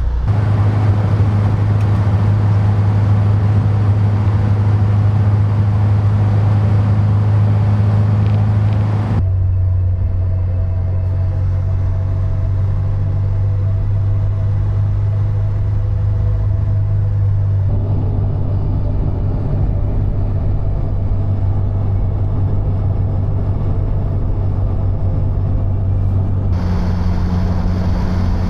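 Subaru WRX's flat-four engine droning steadily at cruise, with tyre and road noise; the sound changes abruptly three times.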